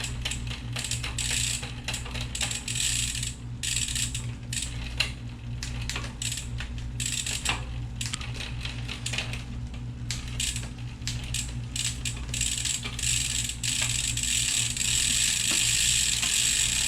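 Bicycle parts being worked on: irregular metallic clicks, ticks and rattles, like a ratcheting freewheel and shifter, over a steady low hum, with a steadier hiss building near the end.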